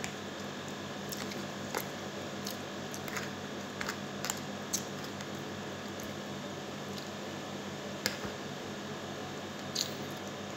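Quiet eating sounds: chewing with a fork picking atchara out of a plastic jar. There are scattered short clicks and taps of the fork against the jar over a steady background hiss.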